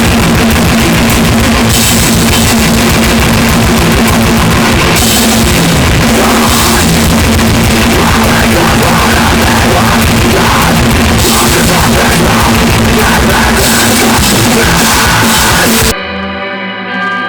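Metalcore band playing at full volume: distorted guitars, bass and a pounding drum kit. About a second before the end the full band cuts off, leaving a quieter ringing chord.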